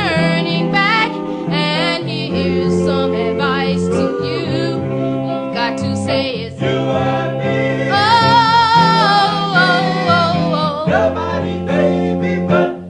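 A song with singing over instrumental accompaniment.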